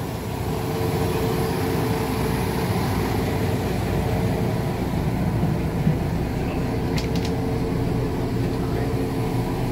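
Old diesel railbus engine running steadily, heard from inside the railbus, with a couple of sharp clicks about seven seconds in.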